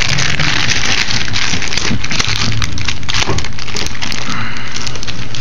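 A low-density polyethylene plastic bag crinkling and crackling as it is handled right up against the microphone, a dense continuous run of sharp crackles.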